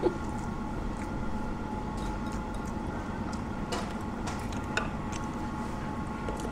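Steady mechanical hum of a conveyor-belt sushi restaurant's running belt and machinery, with several constant tones in it. A few light clicks of chopsticks and plates: a sharper one right at the start and two more near the middle.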